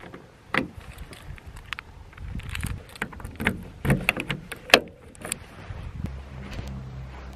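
A bunch of keys jangling on a keyring while a key is worked in a Volkswagen T4 van's door lock: a run of small clicks and knocks, the sharpest just before five seconds in. A low steady hum sets in near the end.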